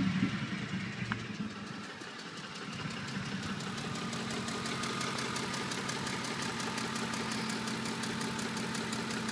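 2007 Ford F-150 engine dropping back from a rev and settling into a steady idle, with a light, rapid, regular knock over the idle. The owner suspects a faulty VCT solenoid.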